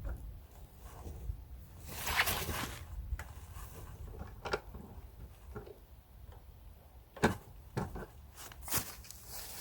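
Scattered knocks and clicks with a brief scrape about two seconds in; the loudest knock comes about seven seconds in.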